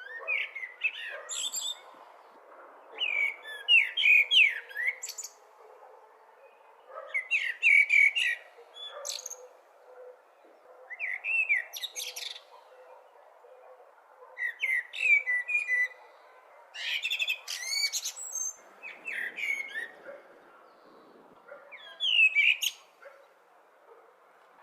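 Blackbird singing: short warbling phrases of sweeping whistled notes, each ending in high twitters, repeated about every three seconds over a faint steady background hiss.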